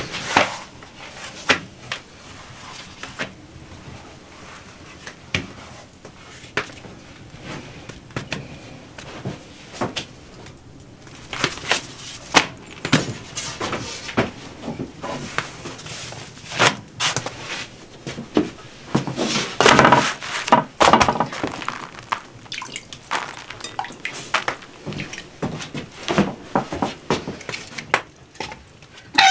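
Scattered knocks, taps and clatter of cooking at a wood-fired stove with an iron top. Split firewood clatters as it is handled near the end.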